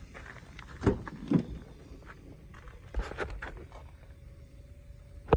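Rear door of a 2005 Ford F-150 crew cab being opened: two solid knocks as the handle is pulled and the latch releases, then a few lighter clicks as the door swings open, and a sharp click near the end.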